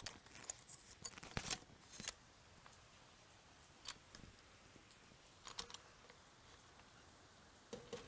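Near silence with a few faint, sharp clicks and taps: several in the first two seconds, then one about four seconds in, one about five and a half seconds in, and a couple near the end.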